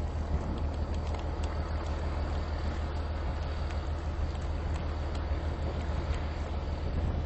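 Steady low rumble of a running vehicle engine, even in level throughout.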